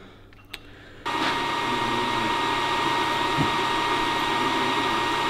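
Electric heat gun switched on about a second in, blowing steadily with a thin motor whine, heating a stuck wheel-bearing inner ring on a rear wheel hub to free it.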